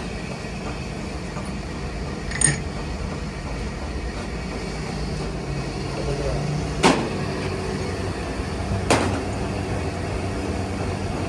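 Milling machine running with a steady hum while a worm gear is cut. Three sharp metallic clicks stand out: one a couple of seconds in, then two more about two seconds apart past the middle.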